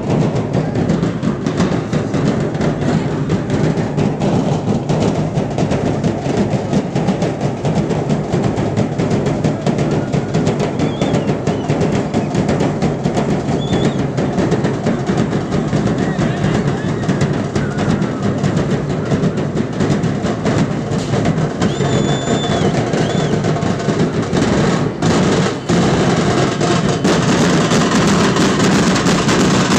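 A group of large barrel drums (dhol) beaten with sticks in a loud, dense, continuous rhythm.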